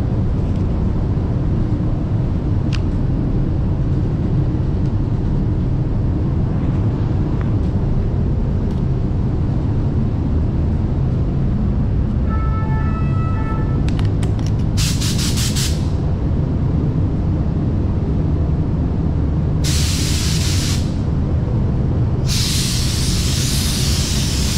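Paint booth ventilation running with a steady low rumble, while a spray gun's compressed air is triggered in short hissing bursts about halfway through and again later, then a longer hiss near the end as spraying of clear coat begins.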